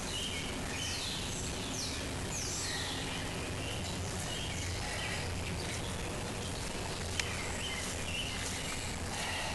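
Birds singing: a run of high, quick whistled notes that slide downward, thickest in the first three seconds and recurring later, over a steady outdoor background hiss. A single sharp click sounds about seven seconds in.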